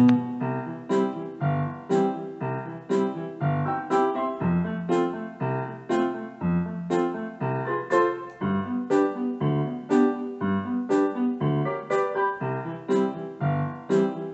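Background piano music: a steady run of evenly struck notes, about two a second.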